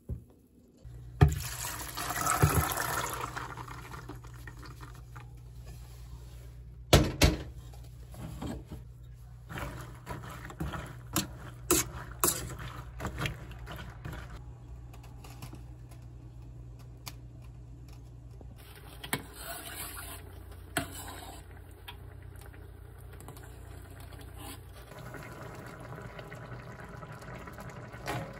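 Black beans boiling in a stainless steel pot of water, stirred with a metal spoon that clinks and scrapes against the pot through the middle. The water splashes about a second in and bubbles near the end, over a steady low hum.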